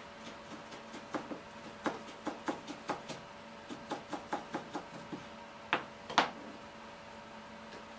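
Kitchen handling noise: a quick, irregular run of light clicks and knocks, the loudest two together about six seconds in, over a steady faint hum.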